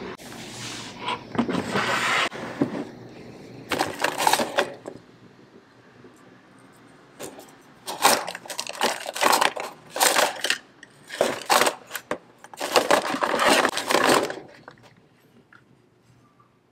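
Plastic storage drawers and small plastic boxes of metal pearl pins and corsage magnets being handled and rummaged through, clattering and rattling in irregular bursts, busiest from about seven to fourteen seconds in.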